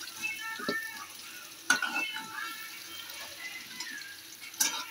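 Cauliflower florets sizzling and crackling in hot oil in an iron kadai. A metal spatula scrapes and clinks against the pan twice, about two seconds in and near the end, as the pieces are lifted out.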